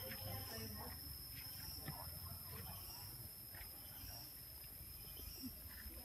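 Insects singing a faint, steady high-pitched drone, with scattered brief soft sounds underneath.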